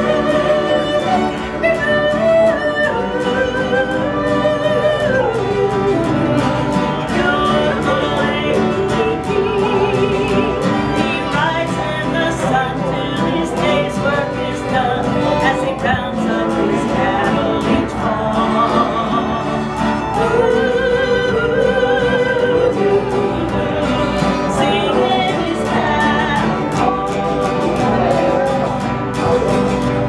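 A woman singing a country song with a wavering vibrato on long held notes. A small acoustic string band accompanies her: mandolin, fiddle and acoustic guitar.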